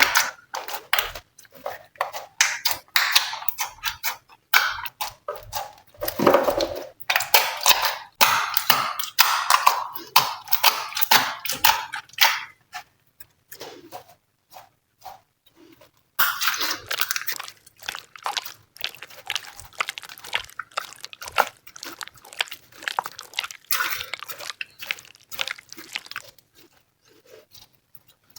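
Glossy slime being squished, stretched and mixed by hand: dense runs of rapid clicks and crackles, easing off for a few seconds about halfway through.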